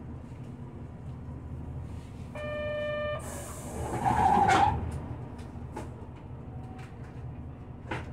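Steady engine and road rumble inside a city bus. About two and a half seconds in, a short electronic beep sounds, then a sharp hiss of compressed air follows straight after. The loudest sound, a brief harsh burst, comes about four seconds in, and a faint click comes near the end.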